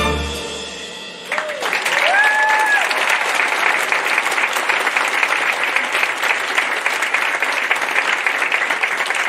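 A sustained final chord of the dance music fades out, and a little over a second in a theatre audience breaks into steady applause. A single whoop rises above the clapping shortly after it starts.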